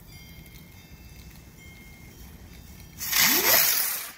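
A Speed Ball firework launching about three seconds in: a sudden loud hiss with a rising pitch, lasting about a second as it shoots into the sky.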